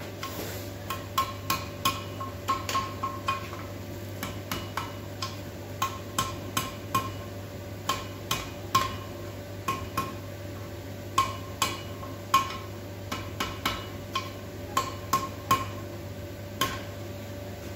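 Hand hammer striking hot steel on an anvil: a long run of irregular blows, roughly two a second, each with a short metallic ring, as the tapered tip of a railway spike is scrolled round on the anvil. A steady low hum runs underneath.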